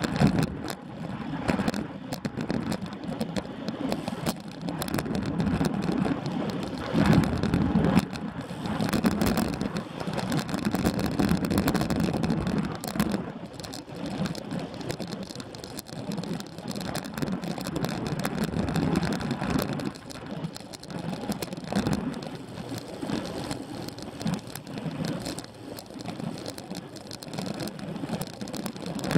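Wind buffeting the microphone of a bike-mounted camera, together with tyre and road noise from a road bicycle riding at about 20 mph. The noise surges and eases unevenly, and small rattles come through from the road surface.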